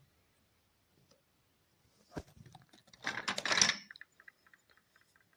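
Plastic toy tool case in its wrapping being handled: a click, then a second of crinkling and clattering plastic, followed by a run of small light clicks.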